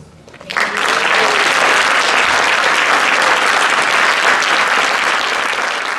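Crowd applauding, starting about half a second in and going on steadily.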